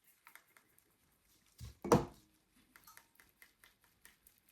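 A single dull thump about two seconds in, like a container knocked or set down on a work surface, with faint light clicks and taps of handling before and after it.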